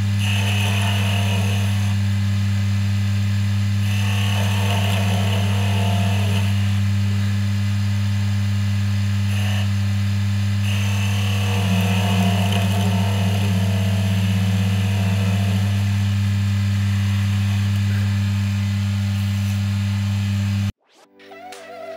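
Wood lathe motor running with a steady low hum while a hand-held chisel cuts a spinning walnut chess piece, the cutting hiss coming and going in stretches. The sound stops abruptly near the end.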